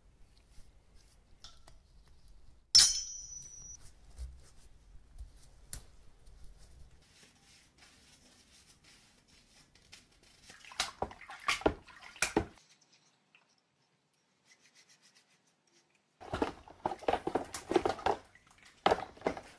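Soft dry brushing with one sharp click and a brief metallic ring about three seconds in; then a brush scrubbing a finned metal heatsink in soapy water, and later hands rubbing a plastic part in the suds, in short bursts of splashing and rubbing.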